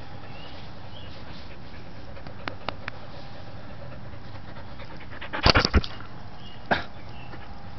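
A dog panting close to the microphone. There are a few faint clicks about two and a half seconds in, and a cluster of loud knocks about five and a half seconds in, with one more knock shortly after.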